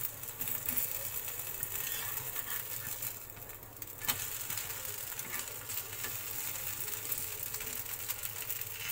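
Suji cheela sizzling in oil on a hot nonstick tawa, with a metal spatula scraping and tapping against it. A sharp slap about four seconds in as the cheela is flipped back down onto the pan.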